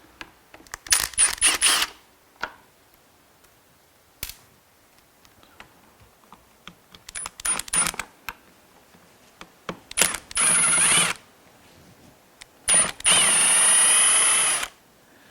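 Cordless power tool run in short trigger bursts, then in two longer runs near the end with a high motor whine that changes pitch as it spins up; light metallic clicks and rattles of parts being handled between them.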